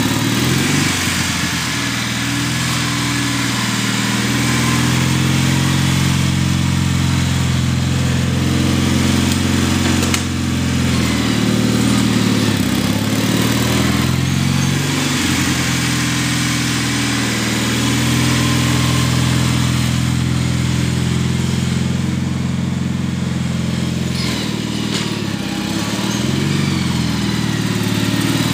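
Gravely tractor's engine running while plowing snow, its pitch dipping and recovering again and again as the load and throttle change.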